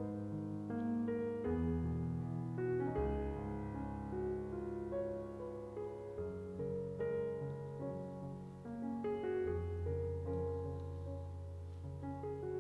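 Background music: a gentle piano piece with sustained chords over a steady bass line.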